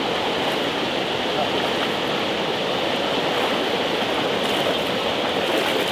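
Rushing floodwater of a swollen mountain stream after heavy rain, a loud, steady rush.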